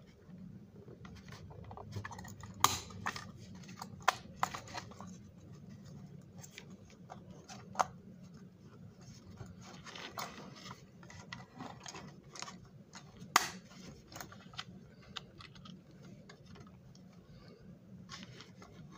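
Plastic S gauge locomotive shell being handled and pressed onto its chassis: scattered light plastic clicks and knocks, with a few sharper clicks as it snaps into place.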